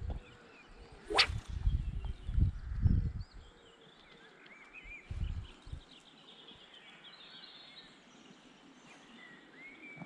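A spinning rod swishing through the air on a cast about a second in: one quick, sharply rising swish. Small birds sing faintly throughout, and low rumbles come and go during the first three seconds and again around five seconds.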